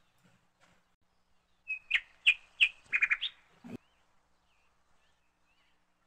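A small bird chirping: a quick run of short, high chirps about two seconds in, then a light knock, and a few faint chirps after.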